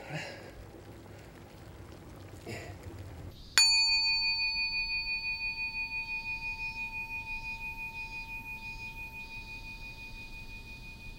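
A Buddhist altar bell (rin) struck once about three and a half seconds in. It rings on with a slow pulsing wobble as it fades.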